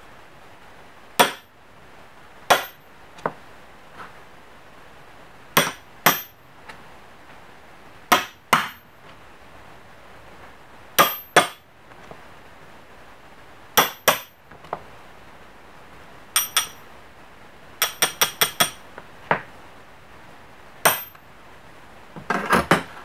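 Sharp metallic taps with a brief high ring, mostly in pairs about half a second apart, then a quick run of five taps and a close cluster near the end.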